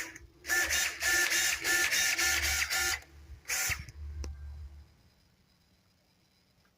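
Small motor-driven mechanism running in rapid pulses, about four a second, with a steady whine through them, for about two and a half seconds. A shorter burst and a single click follow, and then it stops.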